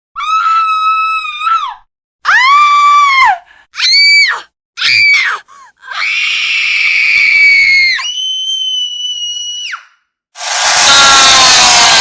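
A series of shrill, high-pitched screams, several cries of about a second or two each, the fifth sliding slowly down in pitch. About ten and a half seconds in, a loud whining power tool starts up and becomes the loudest sound.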